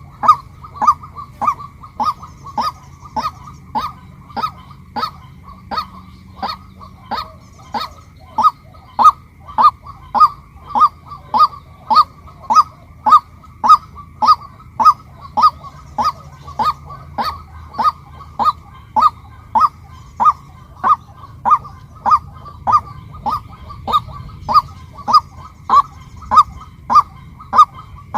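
Female white-breasted waterhen calling: a short, sharp note repeated steadily about twice a second.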